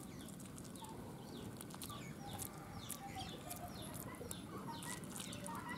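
Chickens clucking, mixed with many short, high, falling chirps.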